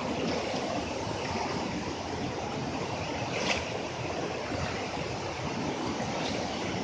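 River water rushing and splashing over rocks through a narrow boulder channel, a steady wash of flowing water, with a brief click about halfway through.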